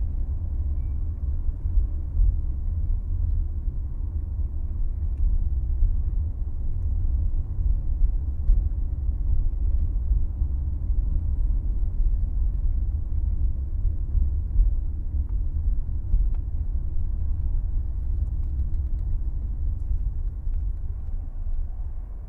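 A car in motion: a steady, deep rumble of engine and road noise with little high end.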